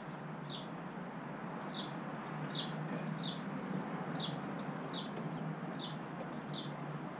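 A small bird chirping over and over, about eight short downward-sliding chirps, under a steady low hum.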